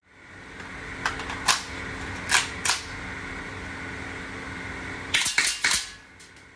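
APS X1 gas blowback airsoft rifle with GBox buffer-tube system firing a rapid string of about four shots a little after five seconds in, each with a sharp blowback clack. Before that come a few single sharp clicks while it is brought up to the shoulder, over a steady background hum.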